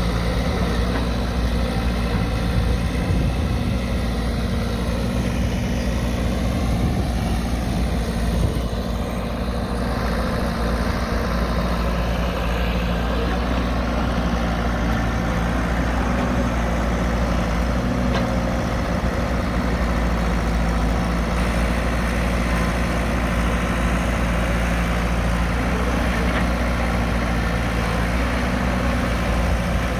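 Caterpillar 312 hydraulic excavator's diesel engine running steadily as the machine digs soil and swings its bucket to load a dump truck.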